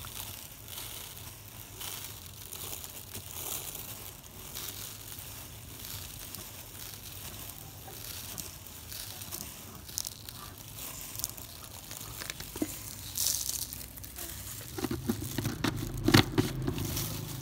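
Coarse roasted salt pouring into a clear plastic jar: a steady grainy hiss of many small grains landing. Near the end come louder clicks and rustling as the jar's plastic screw lid is turned on inside a plastic bag.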